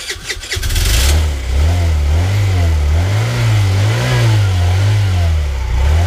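Small Chinese moped engine cranked on the electric starter, catching within about a second, then running and revving up and down about once a second on the throttle. This is its first start after bad old petrol was cleared out and the carburetor cleaned.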